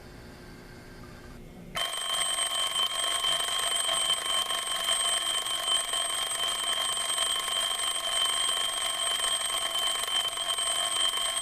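Ken-Tech T-4689 alarm clock's mechanical twin-bell alarm starts suddenly about two seconds in and rings continuously and loudly, a steady metallic bell clangour.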